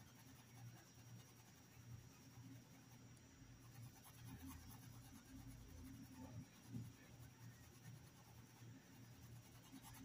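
Near silence, with faint scratchy strokes of a paintbrush dabbing and brushing white fabric paint onto a cloth dish towel over a low steady hum.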